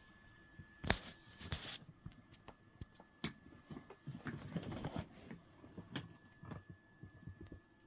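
Faint rustling and scattered light clicks close to the microphone, densest about halfway through, over a faint steady high-pitched whine.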